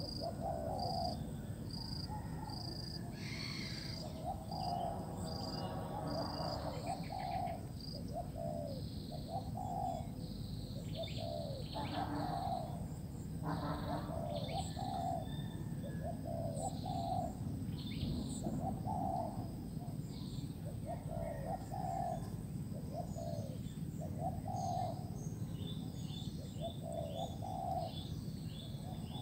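Spotted dove cooing: a run of low, soft coo notes repeating every second or two, with small birds chirping high above it.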